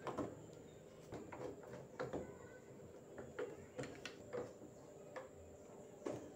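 Faint, scattered light clicks and taps of a plastic washing-machine control-panel cover being handled and fitted back into place, with a screwdriver working near the end.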